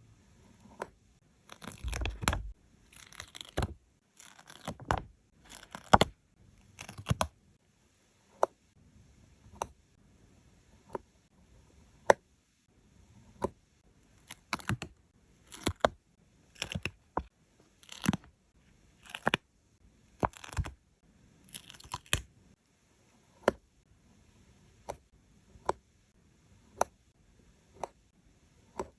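Stickers being peeled off their backing sheet and pressed down by hand: short tearing rasps among many light, sharp taps and clicks, irregularly spaced.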